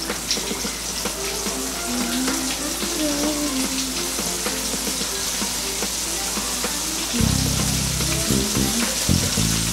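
Breaded chicken tenders deep-frying in a pot of hot oil, a steady bubbling sizzle as pieces are lowered in. Background music plays alongside and turns fuller and deeper about seven seconds in.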